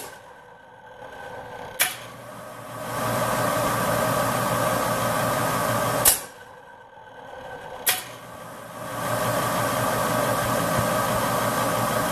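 Heatmor outdoor furnace's electric draft fan running with a steady hum, switched off and on twice. Each time the power cuts, there is a loud snap as the solenoid releases and the spring slams the baffle shut, and the fan winds down. About two seconds later a lighter click comes as the solenoid pulls in again, and the fan spins back up.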